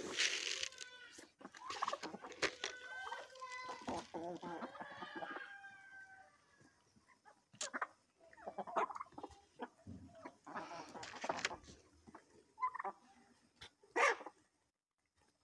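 A flock of chickens clucking and calling as they feed. The calls overlap busily for the first few seconds, then come in scattered short bursts, with one loud call near the end.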